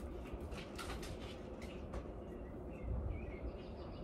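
Faint rustling and clicks, mostly in the first two seconds, as things are handled, with small bird-like chirps in the background.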